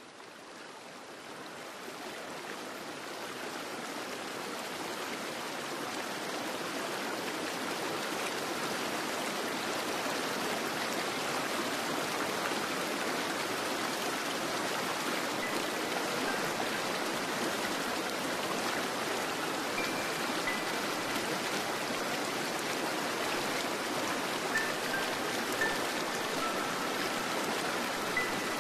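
Steady rushing, stream-like water noise that fades in over the first few seconds and then holds level, with a few faint short high tones in the second half.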